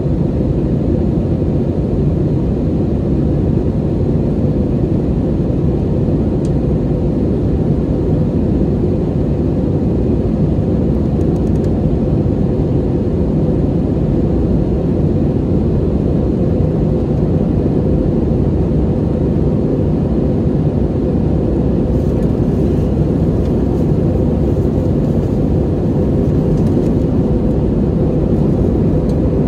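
Airliner cabin noise during the climb: a steady low rumble of engines and rushing air, heard from a window seat, with a faint steady hum near the middle of the range.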